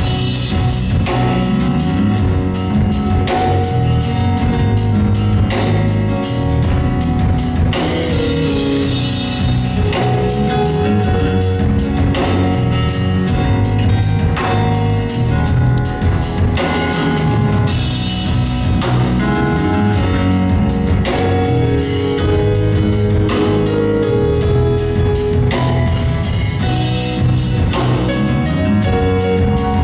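Music with a drum kit keeping a steady beat over bass and held chords.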